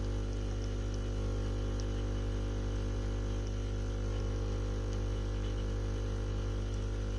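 Espresso machine pump running with a steady low hum.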